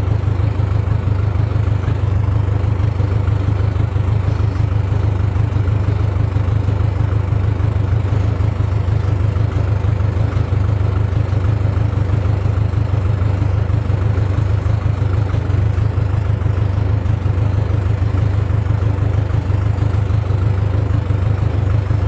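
An engine running steadily at one speed: a deep, even drone that does not rise or fall.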